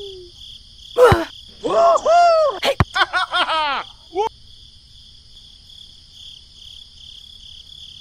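Steady chirping of crickets as background ambience. In the first half, high-pitched squeaky cartoon-style voice calls rise and fall in quick runs, with two sharp clicks of a ball being kicked.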